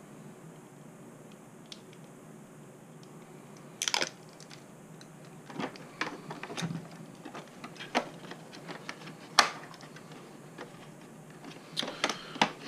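Handling sounds of small plastic RC parts being worked by hand: a short scratchy burst about four seconds in, then scattered light clicks and taps, several close together near the end, as an ESC/receiver is stuck in place with double-sided tape.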